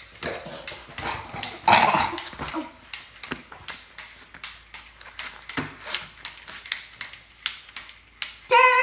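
A dog moving close by on a hardwood floor: irregular light clicks and taps of its claws, with a louder snuffling rush about two seconds in.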